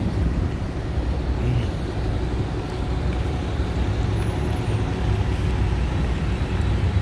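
Diesel engine of a semi truck idling steadily close by, a constant low rumble.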